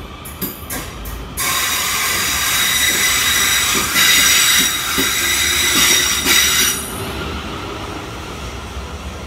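A South Western Railway Class 450 Desiro electric multiple unit runs past the platform. It makes a loud, high-pitched wheel-on-rail screech and hiss from about a second and a half in until about seven seconds, with clicks and knocks of the wheels over rail joints. The noise then falls to a lower rumble as the last coach passes and the train draws away.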